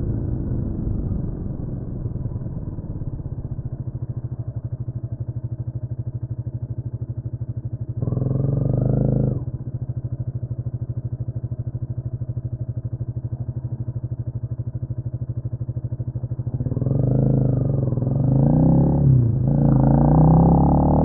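Honda CMX250 Rebel engine idling with an even, steady beat, with a short burst of throttle that rises and falls about eight seconds in. Near the end it revs up and pulls away, the pitch rising, dipping once at an upshift and climbing again.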